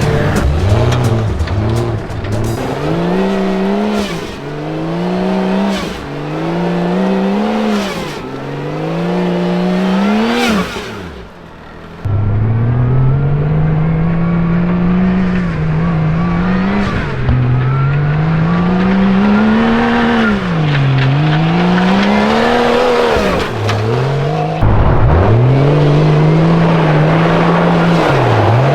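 Supercharged 1992 Jeep Cherokee's engine revving hard and easing off over and over while being driven, its pitch climbing and dropping every couple of seconds and then in longer sweeps, with a brief lull about eleven seconds in.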